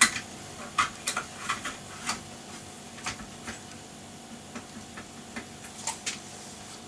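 Scattered small clicks and taps of hands handling parts inside a Compaq Deskpro desktop computer, around its CPU heatsink. They come irregularly, a few closely paired, over a faint steady hum.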